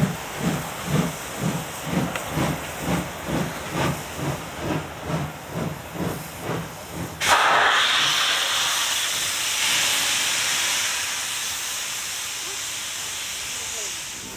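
Steam locomotive chuffing slowly and evenly, about two and a half exhaust beats a second, the beats growing fainter. About seven seconds in a sudden loud hiss of steam blowing off takes over and slowly dies away.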